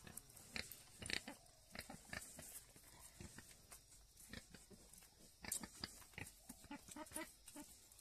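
Pigs eating from a concrete trough: faint, irregular crunching and chewing clicks.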